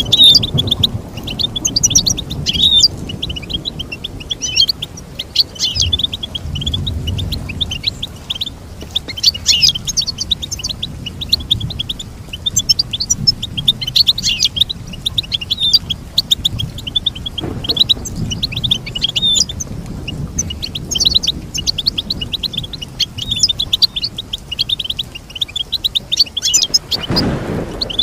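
European goldfinch singing continuously in fast, twittering runs of high chirps and trills, with a brief burst of noise near the end.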